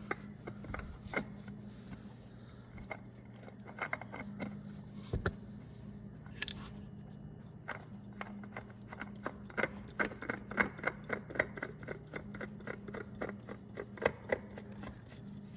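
New spin-on oil filter being threaded onto a snowmobile engine by hand: a string of small clicks, taps and light scraping from hands and metal parts, some in quick runs, over a steady low hum.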